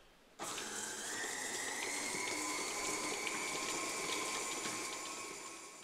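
KitchenAid Artisan stand mixer switched on about half a second in. Its motor whines steadily as the beater creams butter and sugar at medium speed, the pitch rising slightly over the first couple of seconds. The sound fades away near the end.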